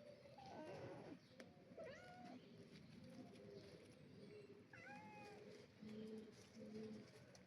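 Kittens meowing faintly: a few short, high calls spaced out over several seconds.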